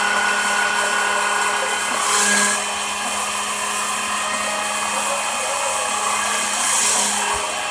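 An electric power tool motor running steadily with a constant hum, swelling briefly louder about two seconds in and again near the end.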